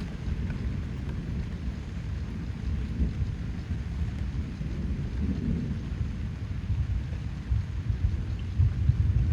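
Rain falling on leafy foliage under a continuous low rumble that wavers and swells a little louder near the end.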